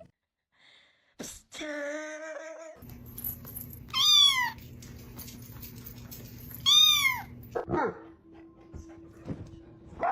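Domestic cat meowing: two loud, high-pitched meows that rise and fall, about three seconds apart, over a steady low hum.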